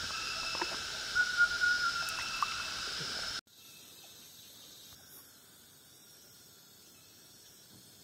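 An unidentified high, whistling-hissing call from the forest, held at several steady pitches and swelling in repeating phrases, cuts off abruptly about three and a half seconds in. Faint chirping of insects follows.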